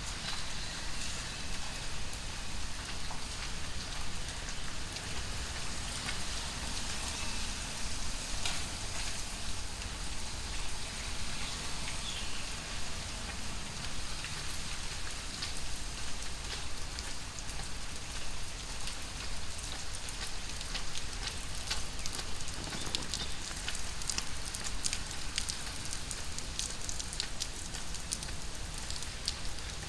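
Heavy tropical rain falling steadily: a dense hiss with many close drops ticking sharply, over a steady low rumble.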